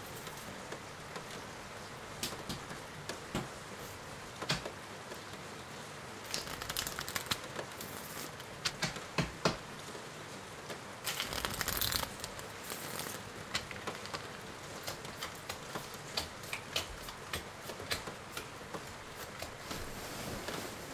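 Small handling noises: scattered clicks, taps and rustles of objects being picked up and set down on a wooden table, with a short burst of crinkling about eleven seconds in, over a steady background hiss.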